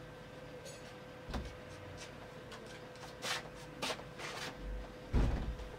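Scattered knocks and rustles of someone moving about and handling objects off-camera, with a louder thump about five seconds in, over a faint steady hum.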